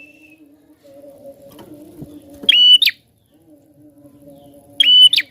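Prinia (prenjak) giving two short, loud, sharp high calls, one about halfway through and one near the end. A faint low steady tone lies underneath.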